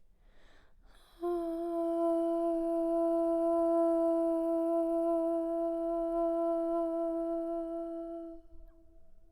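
A woman's voice takes an audible breath, then holds one long, steady note in voice toning for about seven seconds before fading out near the end.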